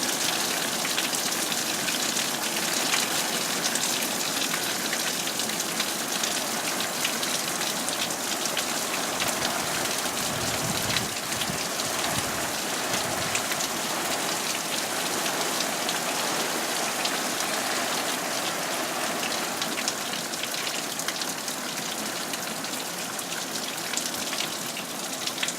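Heavy thunderstorm rain pouring steadily, a dense crackle of drops hitting hard surfaces. A brief low rumble swells and fades about ten to thirteen seconds in.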